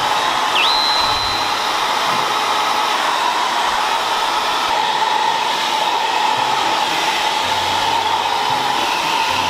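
Hair dryer running steadily, blowing a wet dog dry.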